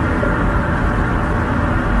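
Domestic cat purring loudly and steadily, close to the microphone.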